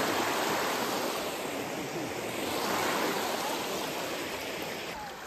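Fast, shallow river rushing over rocks in rapids: a steady wash of water that grows fainter near the end.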